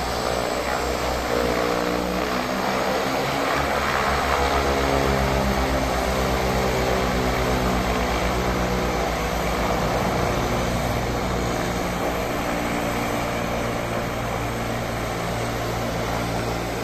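Twin turboprop engines and propellers of a small high-wing airplane running as it taxis, a loud propeller drone whose tones waver and shift early on, then settle into a steady note.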